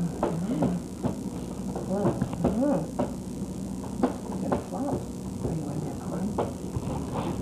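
A baby's short wavering vocal sounds, rising and falling in pitch, over a steady hum with scattered clicks.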